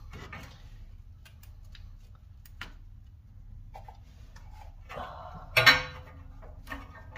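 Light, irregular metal clicks and taps from hand work at a car's front wheel hub and steering knuckle while a new CV axle is fitted, with one louder metal clank that rings briefly about five and a half seconds in.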